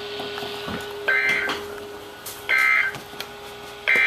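Emergency Alert System end-of-message data bursts over weather radio: three short, identical warbling digital bursts, about a second and a half apart, marking the end of the alert. A faint steady tone and hiss from the radio run underneath.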